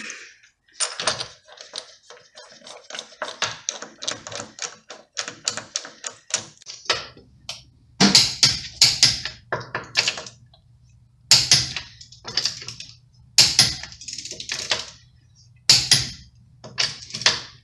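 Ratchet wrench clicking quickly and evenly as a fastener on the wheel hub is run down, then short loud bursts of clicking over a faint steady low hum.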